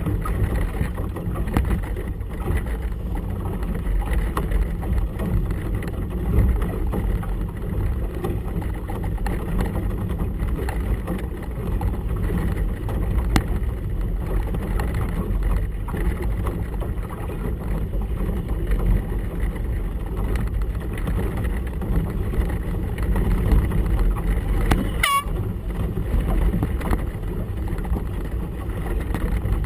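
Steady low rumble of wind buffeting the microphone, mixed with choppy water against a small boat's hull. A brief high chirp sounds once near the end.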